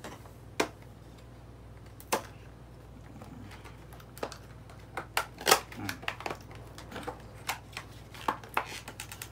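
Phone handling: an iPhone 11 being fitted into a plastic phone case, with scattered sharp clicks and taps. There are a few single clicks at first, then they come more quickly in the second half.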